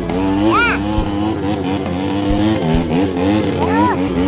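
Off-road vehicle's engine revving under load, its pitch wavering up and down, with two brief rising-and-falling whines, one early and one near the end.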